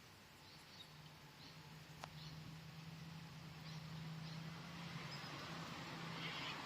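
Faint, scattered short bird chirps over a steady low hum that grows gradually louder, with a single sharp click about two seconds in.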